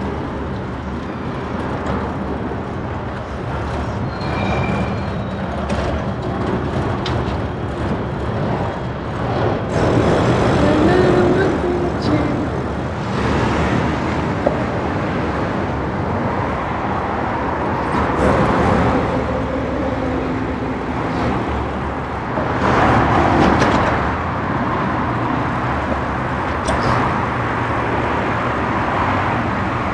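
City street traffic heard from a bicycle: a steady rumble of cars and buses, with several vehicles passing close and louder.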